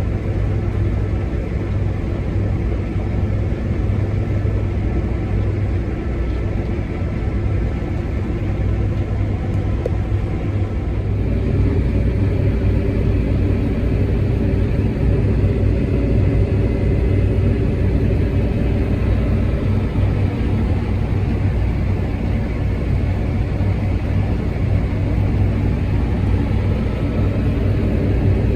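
New Holland CR8.90 combine harvester running steadily while harvesting wheat, a deep continuous engine rumble; the sound shifts slightly about eleven seconds in.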